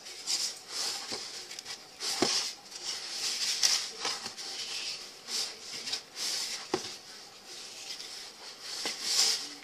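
Hands squeezing and rubbing dry, crumbly shortbread dough (flour, butter and sugar, no liquid) in a mixing bowl. It makes an uneven rustling, scraping sound, stroke after stroke, with a couple of light knocks against the bowl.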